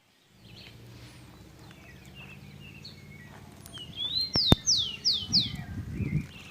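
Songbirds singing at dawn: many short chirps, and about halfway in one bird gives a loud run of four falling whistled notes. A sharp click sounds about then, and a few low thumps come near the end.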